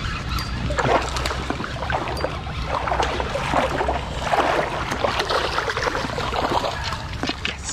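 Shallow creek water splashing and sloshing irregularly while a hooked smallmouth bass is played in by a wading angler, over a steady low rumble on the microphone.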